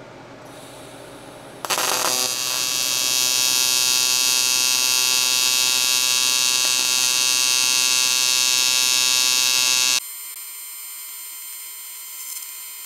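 AC TIG welding arc on aluminum tube, striking with a crackle about two seconds in and then buzzing steadily and loudly. About ten seconds in the buzz drops abruptly to a quieter, thinner buzz.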